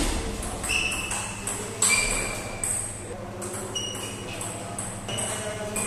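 Table tennis rally: the celluloid-type plastic ball clicks sharply off the bats and the table in an irregular back-and-forth, over short high tones in the background.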